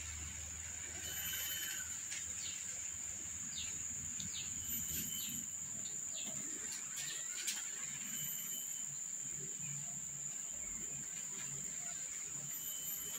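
A steady high-pitched insect drone, with short chirps here and there and one brief click about seven and a half seconds in.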